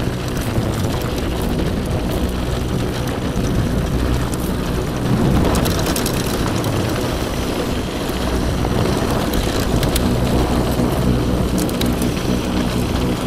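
Mountain bike ride noise: wind rushing past the camera and a steady rattle as the bike rolls fast over a rough, rutted dirt trail, with steady background music underneath.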